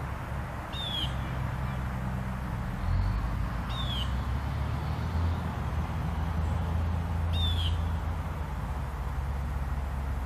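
A bird's short, high, falling call, given three times about three seconds apart, over a steady low rumble.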